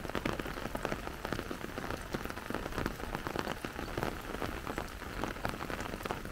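Steady rain falling on an umbrella held overhead, a dense, irregular run of close drop ticks.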